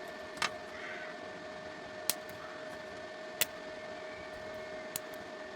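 Hitman 295A inverter stick welder humming steadily with its cooling fan and a constant whine, while the electrode is struck against the metal four times with sharp clicks, trying to start an arc that will not catch on the underpowered 3000 W inverter supply.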